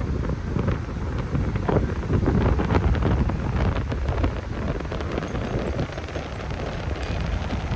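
Strong wind buffeting the microphone: a steady low rumble broken by irregular gusts.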